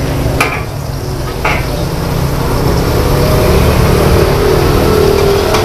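Mee goreng noodles being stir-fried in a steel wok over a gas burner: a steady low rush with sizzling, and sharp clanks of a metal spatula against the wok twice in the first second and a half and once more near the end.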